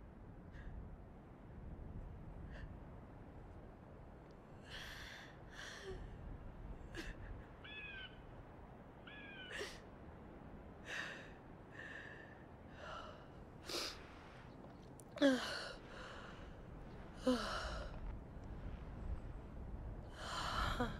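A young woman crying: broken gasping breaths and short whimpering sobs that come in separate bursts, with two sharper gasps in the second half.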